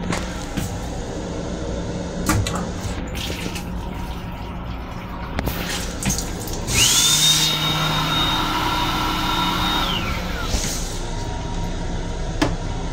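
Toilet on a Long Island Rail Road M7 railcar flushing: a sudden loud rush begins about seven seconds in, carrying a high whistling tone that rises quickly, holds for about three seconds and then falls away as the flush ends. A steady rumble of the moving train, with a few clicks, runs under it.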